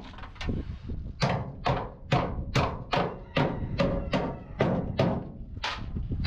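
Hammer blows on the sheet metal of an accident-damaged truck cab, about two to three a second in a steady rhythm, as the dented panel is beaten back into shape.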